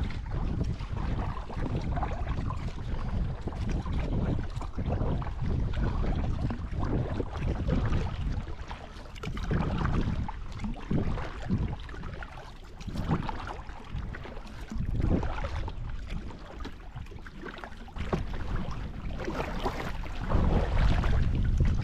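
Wind rumbling on the microphone over water splashing from kayak paddle strokes and lapping at the hull, louder near the end.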